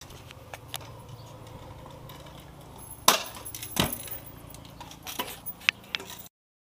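Stunt scooter knocking and clattering on a concrete driveway: two sharp knocks around halfway through, then a few lighter clicks. The sound cuts off abruptly near the end.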